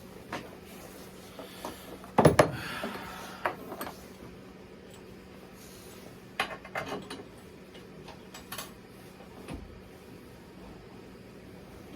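Metal tools and hardware being handled: a loud clank about two seconds in with a rattle after it, then scattered smaller clinks and knocks.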